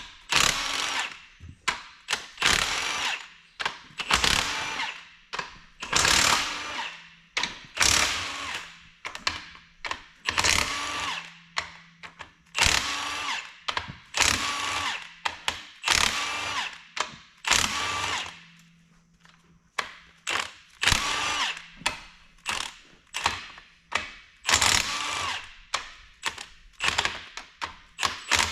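Power impact wrench hammering in short bursts of about a second, over and over, as head bolts are run out of a diesel engine's cylinder head.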